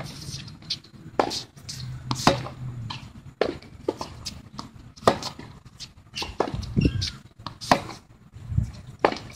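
Tennis balls struck by rackets and bouncing on a hard court during a practice rally: a string of sharp pops about once a second.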